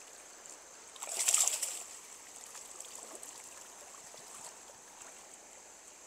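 A single short splash about a second in as a hooked rainbow trout is brought in at the surface, over the steady trickle of a stream.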